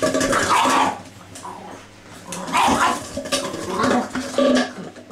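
Empty plastic drinks bottle crackling and clattering on a hard floor as a young pug bites and pushes it around, in three spells of noise.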